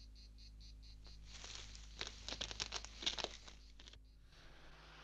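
Crickets chirping in an even pulse of about four a second, then about two seconds of irregular crackling and crunching in dry grass. The sound cuts off abruptly near the end.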